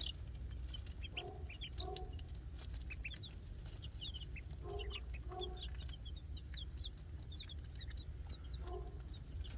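Young chickens peeping: many short, high cheeps throughout, with lower clucking notes in pairs a few times (about a second in, near the middle, and near the end). A steady low rumble runs underneath.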